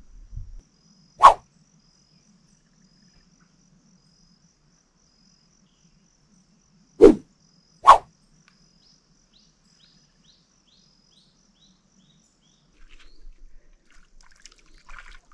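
Three short, loud sounds: one about a second in, then two close together around seven and eight seconds. Under them runs a faint, steady high chirping of about four pulses a second.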